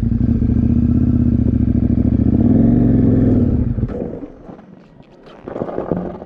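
KTM motorcycle engine running steadily with a slight rise in revs, then stopping about four seconds in. Brief clatter follows near the end.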